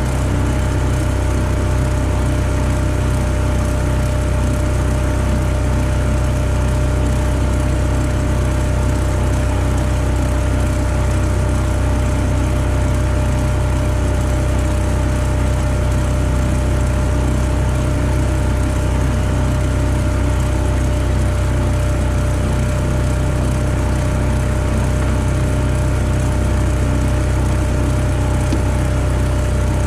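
Boat's outboard motor running steadily at an even speed, with water rushing along the hull.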